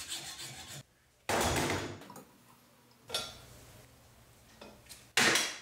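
A hacksaw rasping against the metal mounting bracket of an EGR cooler: two separate strokes, each fading out, about two seconds apart.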